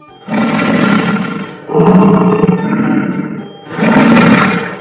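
Buffalo bellowing: three long, rough, low calls in a row, each a second or more.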